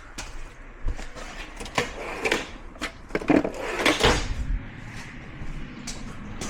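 Clicks, knocks and scraping of hands working at a stuck cap on a riding mower's oil drain hose, the loudest clatter between about two and four seconds in.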